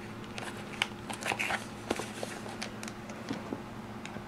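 A cardboard product box being handled: scattered light clicks, taps and rustles over a steady low hum.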